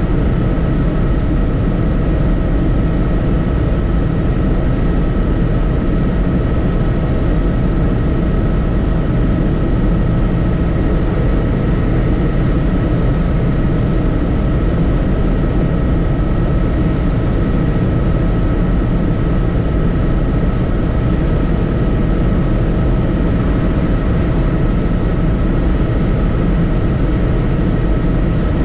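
Helicopter in flight: a loud, steady drone of rotor and engine noise with a constant high whine over it.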